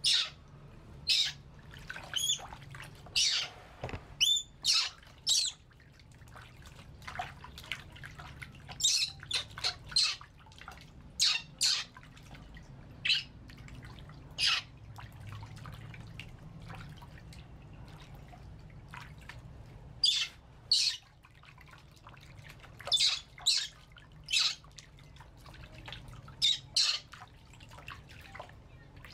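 Baby monkey giving short, shrill, high-pitched squeals again and again in irregular bursts while being bathed, with water being poured and splashing in a plastic basin.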